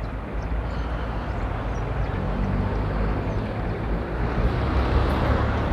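City street traffic: vehicle engines running close by, a steady low rumble that grows louder near the end.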